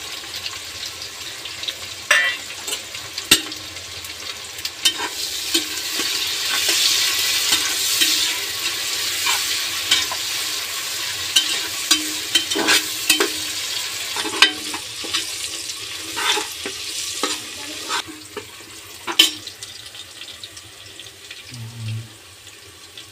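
Sliced onions and whole spices sizzling in hot mustard oil in an aluminium pressure cooker, with a steel ladle scraping and clicking against the pot as they are stirred. The sizzle is loudest several seconds in and dies down near the end.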